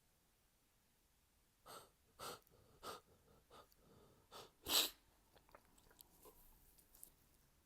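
A person in an allergy sneezing fit: a run of short, sharp breathy bursts about every half second, building to one loud sneeze nearly five seconds in, followed by a few faint clicks.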